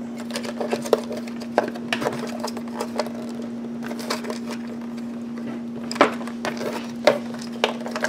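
Sharp plastic clicks and knocks as wires and connectors inside a car jump starter's plastic housing are tugged at and handled, over a steady low hum.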